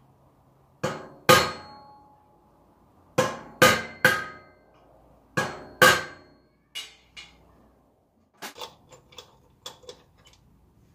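Ringing metal-on-metal hammer blows at an MTZ tractor's rear wheel hub: seven loud strikes in groups of two and three, then two lighter ones. Near the end comes a quick run of lighter metallic clicks.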